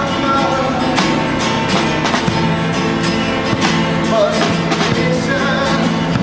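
Live music: a singing voice over strummed acoustic guitar and drums keeping a steady beat.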